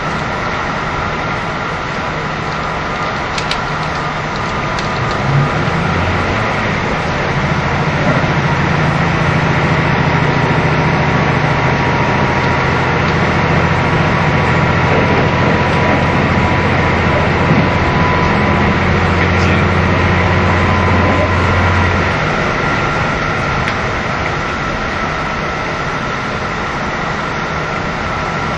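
Onboard running sound of a KiHa 75 diesel railcar: steady rolling and wheel noise, with a faint steady whine. About six seconds in, the diesel engine comes in with a deep drone as the train runs under power; the drone drops away a little past twenty seconds as the train goes back to coasting.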